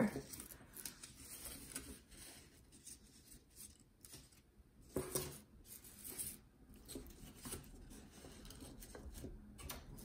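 Faint rustling and light tapping of cardstock being folded and pressed together by hand, in short scattered bursts, the loudest about five seconds in.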